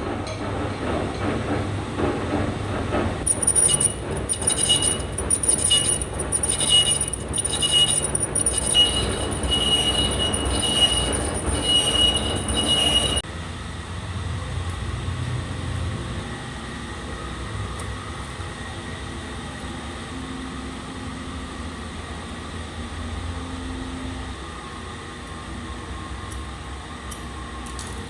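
Lathe turning a metal truck wheel hub: a high, pulsing metal-on-metal squeal over the machine's running noise for about the first half. About halfway through it changes abruptly to a quieter, steady machine hum.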